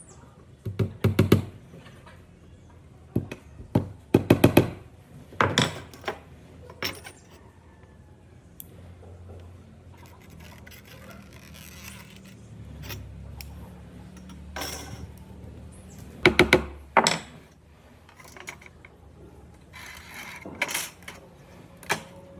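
Workshop handling noise: clusters of sharp knocks and clatters, a few strikes at a time, with quieter stretches between. The loudest come about a second in and again about sixteen seconds in.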